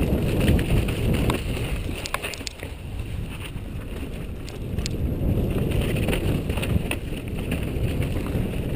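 Mountain bike descending a rocky trail, heard from a helmet-mounted camera: a continuous rumble of wind buffeting the microphone and tyres rolling over rock, with scattered sharp knocks and rattles from the bike. The rumble eases a little between about two and five seconds in.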